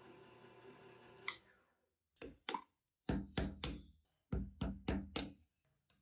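A steady machine hum stops with a click a little over a second in; after a short pause come about nine sharp knocks in quick groups of two or three, each with a brief ring.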